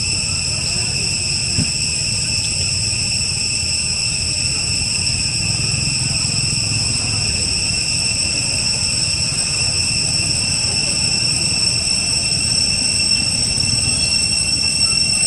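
Steady, high-pitched insect drone, several even tones held without a break, over a low continuous rumble.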